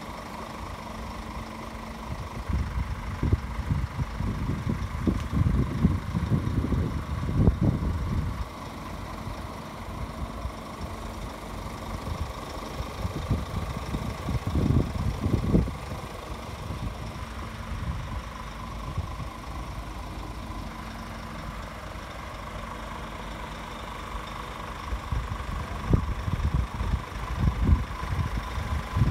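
Scania G410's 13-litre six-cylinder diesel engine idling steadily, with irregular low rumbling on the microphone swelling up a few times.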